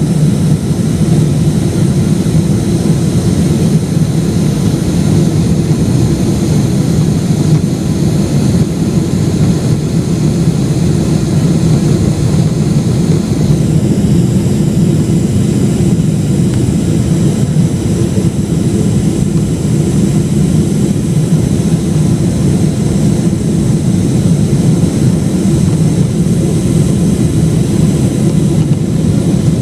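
Steady cabin rumble of a Boeing 777-300ER, heard from inside the passenger cabin: the jet engines and airflow during the landing.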